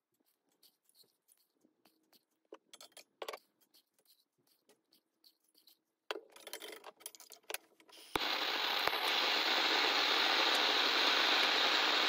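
Aluminium swarf dropped into a steel crucible, with faint scattered metallic clinks and rattles. About eight seconds in, the homemade furnace's gas burner lights with a sharp click and then runs with a steady rushing hiss of flame.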